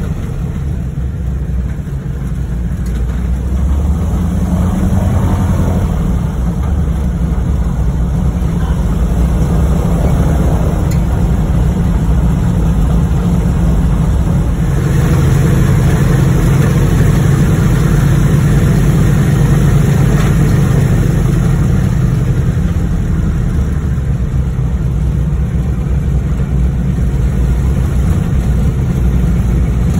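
Propeller plane's piston engine and propeller running steadily while the plane taxis, heard from inside the cabin as a continuous low drone that swells somewhat about halfway through.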